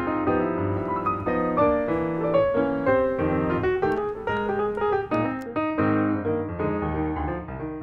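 Background piano music: a melody over sustained chords, at a steady level.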